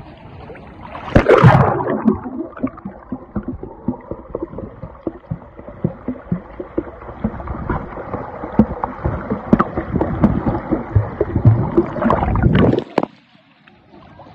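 Water splashing in a swimming pool: a loud splash about a second in, then the repeated irregular splashing of swimming strokes, which cuts off abruptly near the end.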